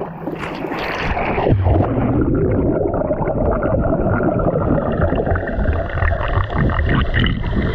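A splash as the camera goes into the sea, then the muffled, mostly low underwater sound of a swimmer moving through seawater, with bubbles, heard through a submerged camera.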